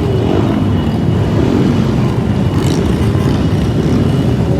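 Many motorcycle engines running together in a steady, loud low rumble.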